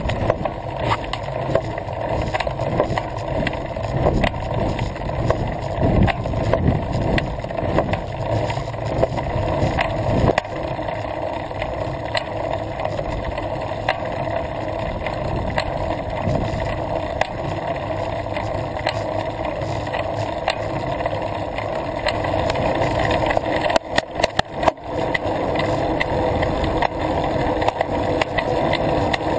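Road bicycle on tarmac, heard from a camera on its handlebars: steady road and rolling noise with frequent small rattles and clicks from the bike. There is a brief crackling dropout about 24 seconds in.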